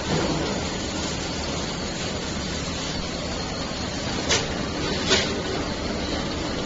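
Steady hum of workshop machinery, with two sharp clicks under a second apart past the middle as the bent stainless steel wire frame is handled against the steel of the worktable and wire bending machine.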